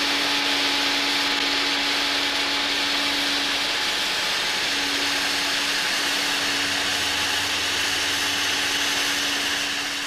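Vacuum cleaner running steadily: a loud rush of air with a steady motor hum beneath it, fading slightly near the end.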